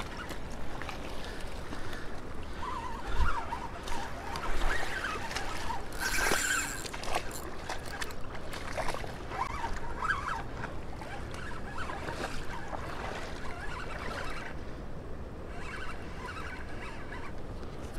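Spinning reel being cranked as a hooked carp is played on the line, scattered small clicks and scratches over a steady rush of river water, with one brief loud hiss about six seconds in.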